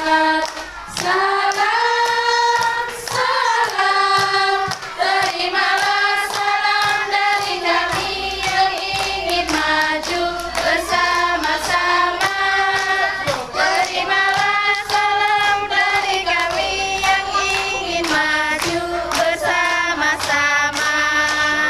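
A group of young children singing a song together in unison, clapping along in time.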